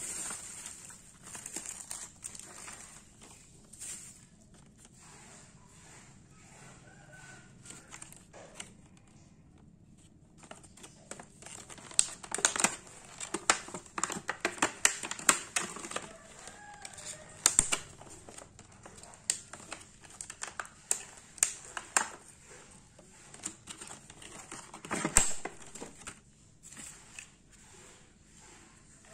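Bubble wrap and clear plastic packaging crinkling and crackling as hands unwrap a USB LED lamp. The crackles come in quick irregular clusters, busiest and loudest in the second half.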